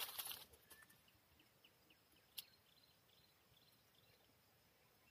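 A brief crunch of footsteps on dry leaf litter at the start, then near silence with faint, short high chirps and one sharp click about two and a half seconds in.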